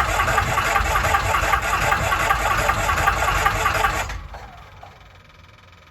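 Lycoming O-320 air-cooled flat-four aircraft engine running after a start, then quitting about four seconds in and winding down over about a second: it is starved of fuel because the fuel valve was left off.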